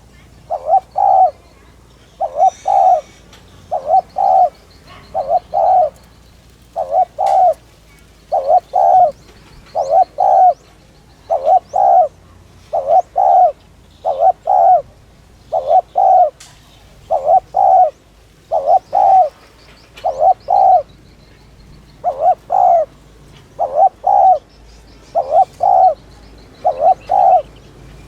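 Spotted dove cooing over and over, one short two-part coo about every one and a half seconds. It is a fast, insistent coo ('thúc gù') of the kind bird-keepers play to rouse decoy birds. Faint chirps of other small birds sound in the background.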